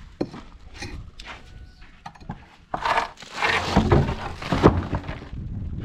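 Nailed wooden boards being prised off a pillar with a bar: a few light knocks, then about three seconds in a loud stretch of cracking and scraping as the wood is wrenched loose.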